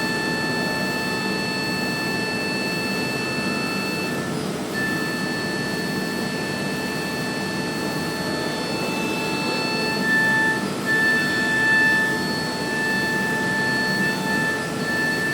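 Mikron HSM 600 LP high-speed CNC milling machine at work: a steady high-pitched spindle whine over a constant rushing noise. The whine breaks off briefly about four seconds in, then resumes.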